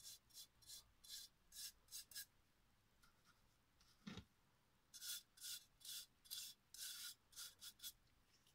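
A stiff bristle brush scraping thick antique gesso paste onto a glass vase in short, faint scratchy strokes, about two a second, with a pause in the middle. A soft knock falls about halfway, as the brush is dipped into the gesso jar.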